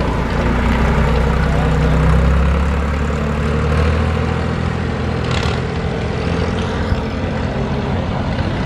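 International 484 tractor's three-cylinder diesel engine running steadily as it drives onto the steel balance beam, louder for the first few seconds and then easing off. A single sharp knock sounds about five seconds in.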